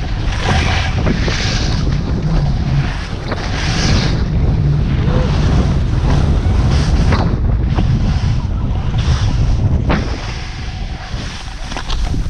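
Wind buffeting an action-camera microphone during a fast ski descent, a heavy low rumble, with the hiss of skis running through snow rising and falling over the turns. It eases off about ten seconds in as the skier slows.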